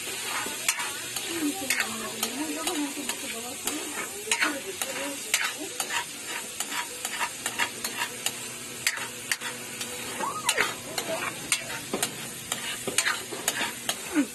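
Metal spatula scraping and tapping against a steel wok in frequent, irregular strokes while the food sizzles in hot oil: stir-frying.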